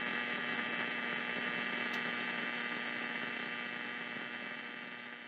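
A steady buzzing hum made of many held tones, with no change in pitch, slowly fading out through the second half.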